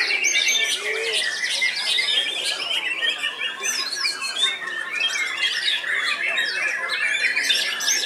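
Several caged white-rumped shamas (murai batu) singing at once: a dense, loud tangle of overlapping whistles, chirps and fast trills with no pause.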